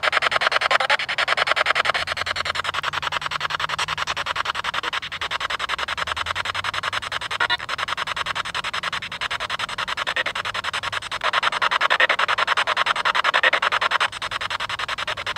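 Spirit box sweeping rapidly through radio frequencies: a continuous choppy rasp of radio static, with brief word-like fragments coming through, taken as replies such as "hello" and "hey".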